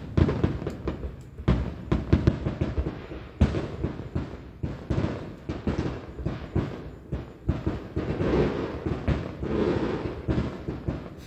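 Fireworks going off: an irregular run of bangs and pops, with a denser stretch of crackling toward the end.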